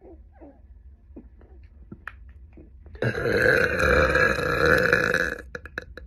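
A young woman's long, loud burp, starting about halfway in and lasting about two and a half seconds before it cuts off. It is preceded by a few faint clicks.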